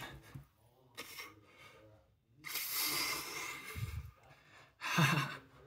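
A man's forceful breathing while flexing: a short snorting breath about a second in, a long hissing exhale through the middle, and another short breath with a little voice in it near the end.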